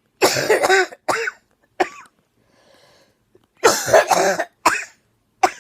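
A person coughing hard in two fits of several coughs each, with a short drawn breath between them about two and a half seconds in. It is a lingering cough that brings up white foamy sputum, which she takes to be viral pneumonia, though she is not sure.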